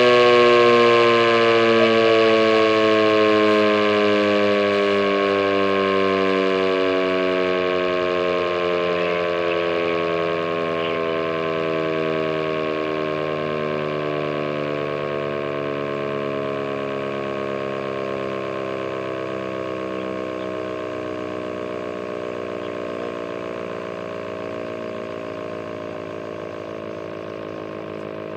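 ACA Banshee electromechanical outdoor warning siren winding down at the end of its test, its rotor coasting to a stop: several tones falling slowly in pitch together and fading steadily.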